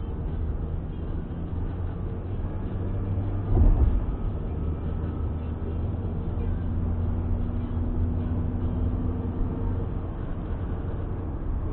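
Steady low rumble of a moving car's engine and tyres heard from inside the cabin, with a brief thump about three and a half seconds in.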